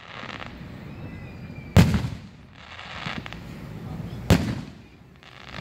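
Aerial firework shells bursting overhead: two loud booms about two and a half seconds apart, each trailing off in a short rumble.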